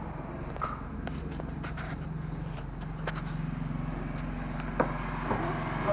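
An engine running steadily at low speed, with a few sharp clicks and knocks over it.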